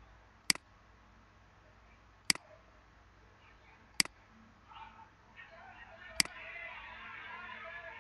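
Four single computer mouse clicks, about two seconds apart. Over the last three seconds a muffled background sound builds up.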